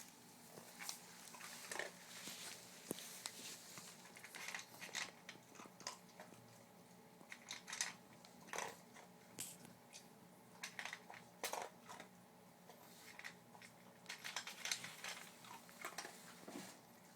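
A dog eating its dinner, with irregular crunches and chewing sounds coming a few times a second, in uneven clusters.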